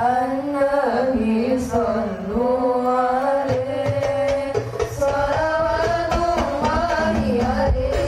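Hadrah ensemble: a lone voice sings a winding, sliding melody, and rebana frame drums join with a low beat about three and a half seconds in.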